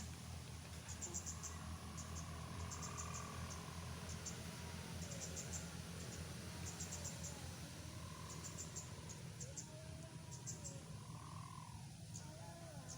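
Crickets chirping in short repeated trills, over a faint steady low hum.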